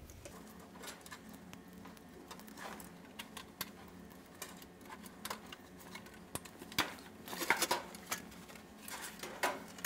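Scattered light clicks and rustles of hands working at a dryer's front bulkhead: wire connectors pushed onto the door switch terminals, then the bulkhead handled, with a busier run of rustling about seven and a half seconds in.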